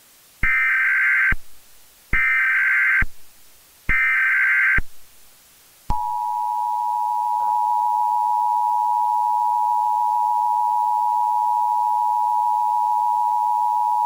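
Emergency Alert System SAME header: three buzzy data bursts, each just under a second long. About six seconds in, the EAS two-tone attention signal (853 and 960 Hz) starts and holds steady. Together they announce a new alert, here a Winter Storm Warning.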